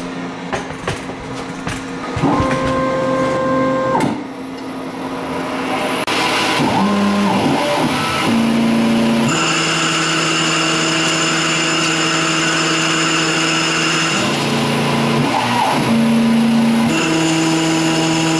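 Grizzly G0602 CNC lathe running a profiling cut on aluminium tube. Its motors whine in a steady stack of tones that jumps abruptly to new pitches several times, with a few clicks in the first two seconds.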